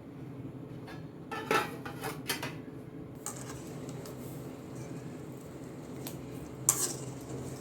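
Metal spoon clinking and scraping against a cooking pot in a few short clusters, with one sharp clink near the end, over a steady low hum. This is the sound of jaggery being stirred as it dissolves in water.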